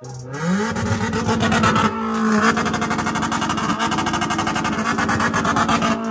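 Straight-piped Toyota Corolla Grande engine revved up and held at high revs. The note climbs over the first half-second, then holds steady under a rapid, continuous crackle from the open exhaust.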